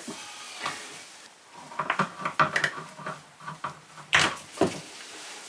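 Hands working a rubber part out of a mould: rustling, small clicks and scraping handling noises, with two sharp knocks about four seconds in.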